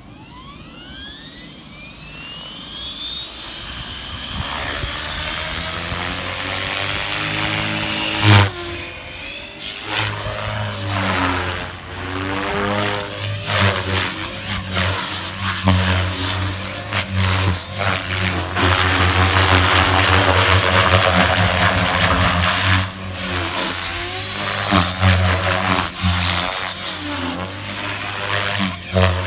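Align T-Rex 500X electric RC helicopter spooling up, its motor whine gliding steadily higher over the first several seconds, then flying with rotor blade noise and motor whine that swell and dip as it manoeuvres. One sharp crack about eight seconds in.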